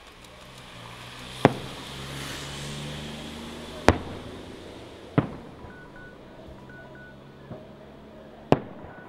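Fireworks shells bursting overhead: four sharp, loud bangs, about a second and a half in, near four seconds, a little past five seconds and near the end, with a fainter pop between the last two.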